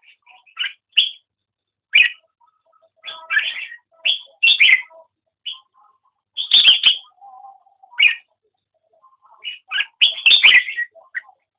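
A caged competition songbird singing short, bright warbled phrases, about a dozen of them in clusters with brief pauses between.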